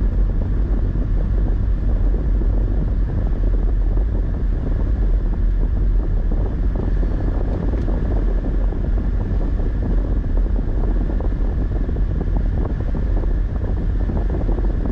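Car driving slowly, a steady rumble of engine and road noise heard from inside the cabin, with wind buffeting the microphone.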